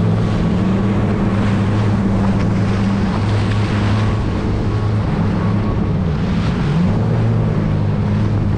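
Jet ski engine running on the water, its pitch dipping and recovering a couple of times, with wind buffeting the microphone and water rushing past.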